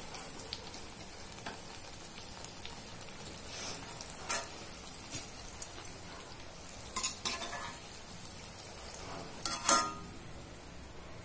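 Jalebis frying in hot oil in a kadhai, a steady soft sizzle. A steel slotted spoon clinks against the pan a few times, about four seconds in, around seven seconds and near ten seconds.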